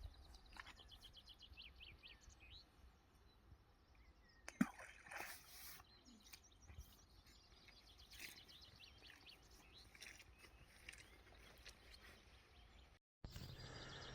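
Faint birdsong, quick repeated chirps and short trills, over a quiet background, with one sharp knock about four and a half seconds in.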